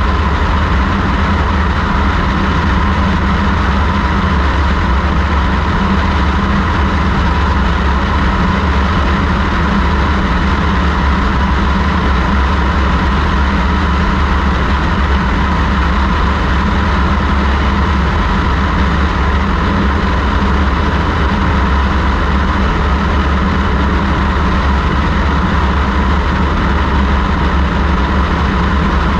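Steady drone of a light aircraft's piston engine and propeller in cruise, mixed with heavy wind rush over a camera mounted outside on the airframe. The sound holds constant with no change in pitch or level.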